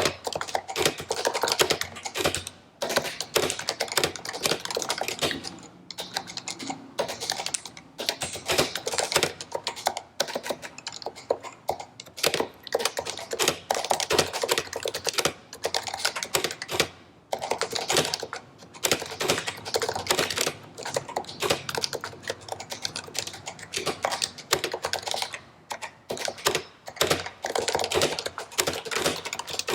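Continuous typing on a stock HHKB Professional Hybrid keyboard with Topre switches: a dense, irregular patter of keystrokes broken by a few short pauses.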